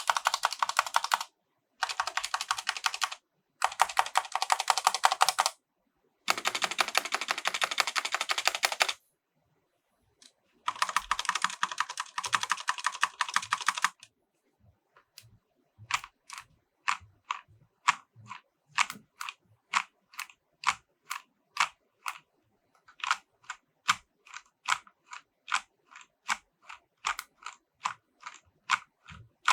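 EVGA Z15 mechanical keyboard with silver switches being typed on: five runs of rapid typing with short pauses between them, then, from about halfway, separate keystrokes at about two a second.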